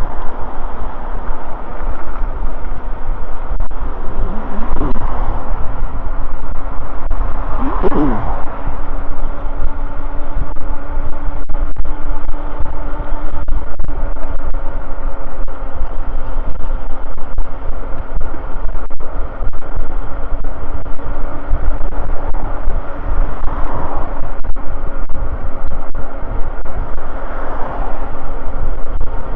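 Wind buffeting the microphone and road noise from a moving e-bike, with a steady motor whine underneath. Two vehicles pass close by about four and eight seconds in.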